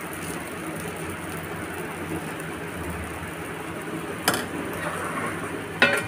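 Steady hiss of batter cooking on a hot griddle over a gas flame, with two short knocks about four and six seconds in.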